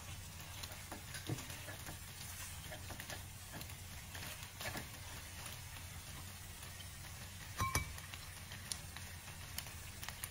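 Creamy pasta sauce bubbling and sizzling gently in a non-stick pan, with scattered soft clicks and scrapes of a utensil stirring. A short ringing clink a little past halfway is the loudest sound.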